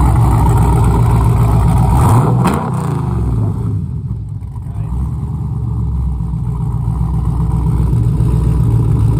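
LQ4-based 408 cubic-inch stroker V8 with a stage 3 cam, running loud through the Pontiac Trans Am's dual exhaust. A sharp click comes about two and a half seconds in; the sound then drops and slowly builds back.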